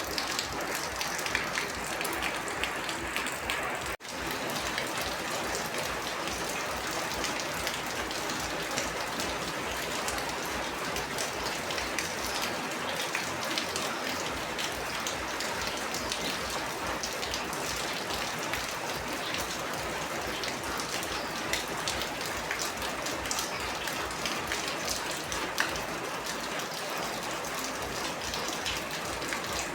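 Steady rain falling: an even hiss of many drops, with scattered sharper drop hits. The sound cuts out for an instant about four seconds in, then carries on unchanged.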